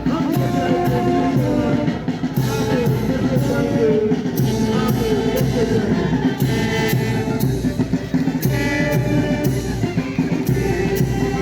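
Music with a steady drum beat about twice a second, and sustained melody or singing over it.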